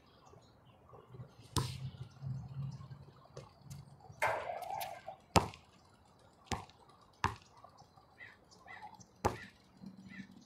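Basketball bouncing on a hard outdoor court: separate sharp thuds every second or so, the loudest about five seconds in.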